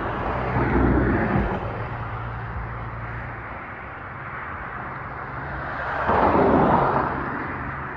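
Road traffic: two vehicles pass, one about a second in and a louder one around six seconds in, each swelling and fading over a steady low hum.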